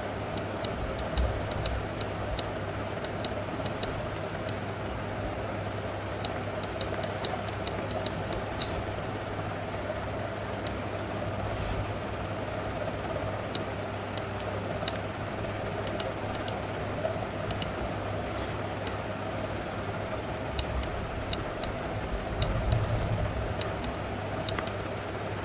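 Computer mouse buttons clicking irregularly, often several in quick succession, over a steady low hum.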